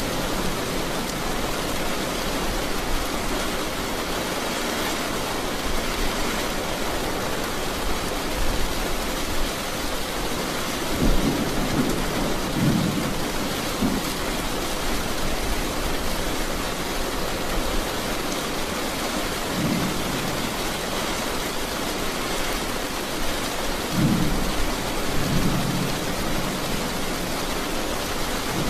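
Thunderstorm: steady heavy rain with short low rumbles of thunder, a cluster of them just before the middle and more toward the end.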